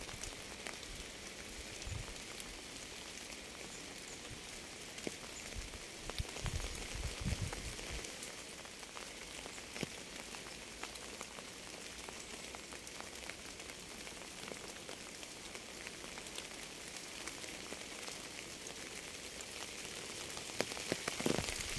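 Steady rain: an even hiss of falling rain with many small drop ticks. A few low dull thumps come about six to eight seconds in and again near the end.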